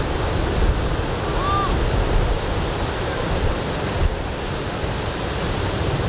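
Ocean surf breaking and washing up the beach, a steady rushing noise, with wind buffeting the microphone as a low, uneven rumble.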